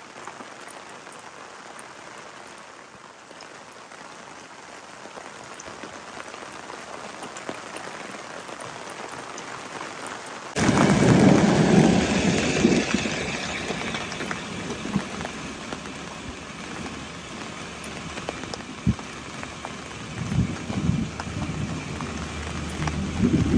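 Steady rain of a thunderstorm, which about ten seconds in abruptly becomes a much louder, heavier downpour with swells of low rumbling and a few sharp ticks.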